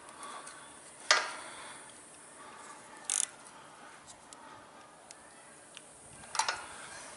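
A few separate metallic clicks and clinks from a Snap-on ratchet and wrench snugging the lock nut on a small engine's rocker arm: a sharp click about a second in, a short clatter near three seconds, another click near six and a half seconds, with faint ticks between.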